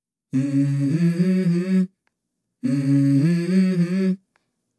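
Music: a short hummed vocal phrase, about a second and a half long, played twice with a silent gap between.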